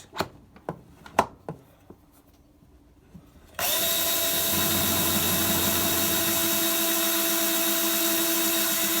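A few light clicks of brass being handled, then about three and a half seconds in a power drill starts up and runs steadily at constant speed, spinning a Hornady Cam-Lock case trimmer's cutter to trim a .308 brass case to length. It stops just at the end.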